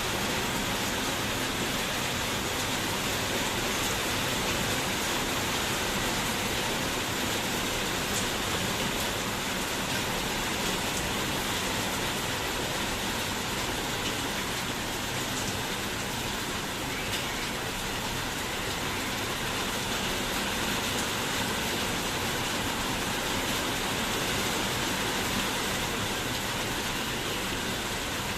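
Rain falling steadily, an even hiss without letup.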